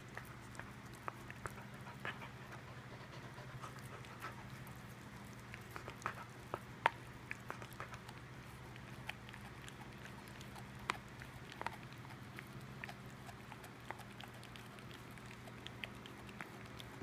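A dog gnawing on a bone: irregular sharp clicks and crunches of teeth on bone, one louder crack about seven seconds in.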